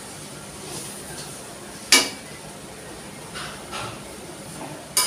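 Metal cooking spoon striking a steel wok: a sharp ringing clang about two seconds in and another at the end, with a few softer clinks between.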